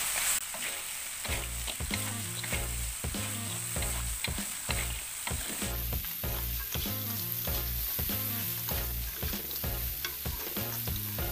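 A metal spatula scrapes and clacks against a stone-coated wok in quick repeated strokes as tempe and Medan anchovies are stir-fried in chili and sweet soy sauce, with the oil sizzling underneath.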